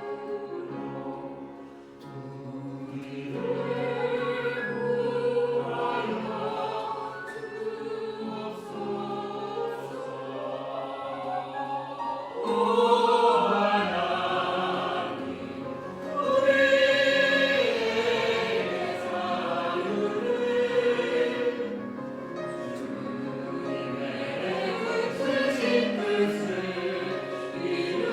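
Church choir singing an anthem in several parts, holding long chords, with swells in loudness about twelve and sixteen seconds in.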